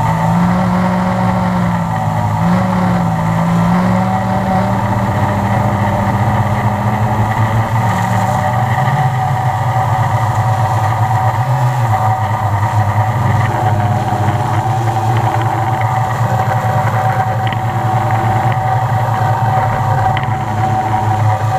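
Multirotor drone's electric motors and propellers humming loudly and steadily, heard close up from the drone's own onboard camera. The pitch wavers up and down a little in the first few seconds as the motors adjust speed, then holds.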